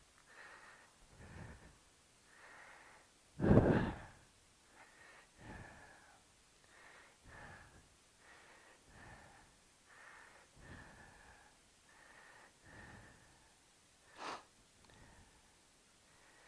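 A person breathing close to the microphone in soft, regular puffs, with one loud bump about three and a half seconds in and a short sharp click near the end.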